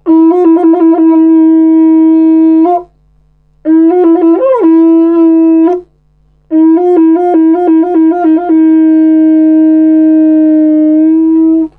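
A long wooden horn blown in three phrases with short breaks between them. Each phrase holds one low note, broken by quick flicks up to higher notes, with one upward bend in the middle phrase. The last phrase ends in a long held note.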